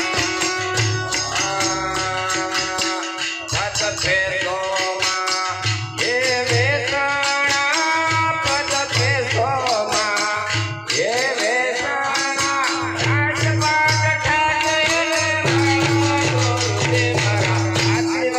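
Folk song: a man singing over a steady held drone note, with a regular low drum beat and shaken rattles.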